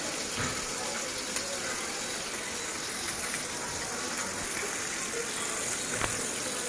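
Oil sizzling steadily in a pan as small tengra fish shallow-fry, with an occasional faint pop.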